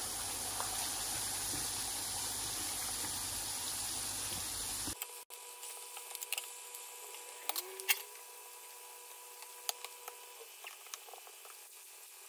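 Hot oil sizzling steadily in a frying pan as vegetable slices fry. About five seconds in, the sound cuts off sharply and gives way to a much quieter stretch of scattered light clicks and taps.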